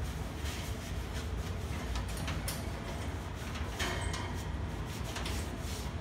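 Hands wiping and scrubbing the dirty wire grill of an old metal box fan, with scattered short scrapes and light rattles of the grill, over a steady low hum.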